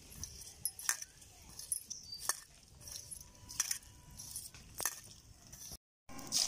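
Hand tossing turmeric-coated river snail meat in a stainless steel bowl, with four sharp clinks a little over a second apart as the bowl is handled.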